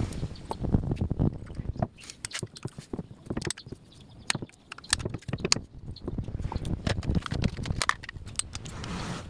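Irregular metal clicks and clinks of hand tools and parts on a Suzuki engine's cylinder head as the rocker arms are fitted and adjusted.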